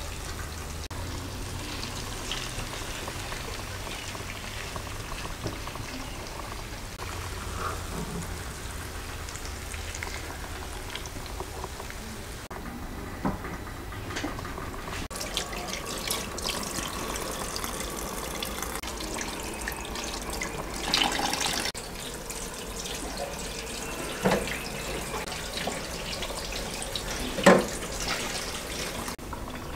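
Kitchen sounds over several shots: food cooking in a frying pan, then tap water running into a stainless steel sink. Two sharp knocks of dishes stand out near the end.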